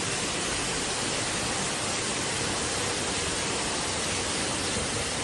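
Heavy rain with muddy runoff pouring down a freshly collapsed hillside after a landslide: a steady, even rushing hiss.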